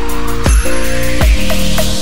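Background electronic dance music with a steady kick drum and a rising noise sweep building up.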